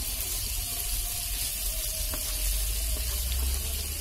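Halved small potatoes frying in hot oil in a pan with a steady sizzle, stirred with a wooden spatula that gives a few faint scrapes and clicks.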